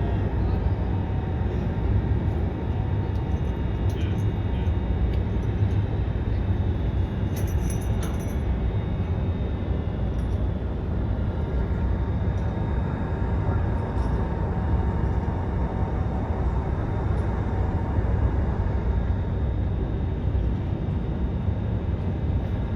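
Steady low rumble of a moving vehicle, with a faint hum of steady tones over it.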